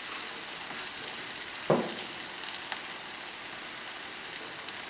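Onion-tomato masala sizzling steadily in a pan, with one short dull knock about a second and a half in.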